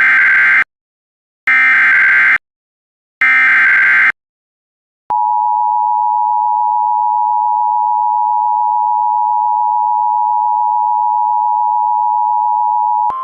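Emergency Alert System header: three short bursts of SAME digital data tones, each just under a second and about a second apart, opening a new alert. Then the steady two-tone EAS attention signal (853 and 960 Hz together) is held for about eight seconds.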